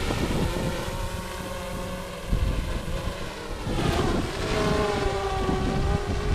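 GoPro Karma quadcopter's propellers whining as it holds a hover on its own against strong gusty wind, the pitch of the whine shifting about two-thirds of the way through as the motors correct. Wind buffets the microphone with a low rumble.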